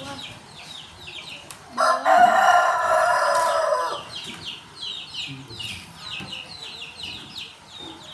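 A rooster crows once, a loud call about two seconds long starting about two seconds in, over a continuous run of short, high, falling chirps.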